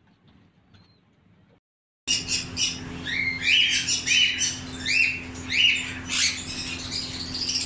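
Near silence at first, then about two seconds in a flock of green-cheeked conures starts squawking: harsh, short rising calls, about two a second, over a steady low hum.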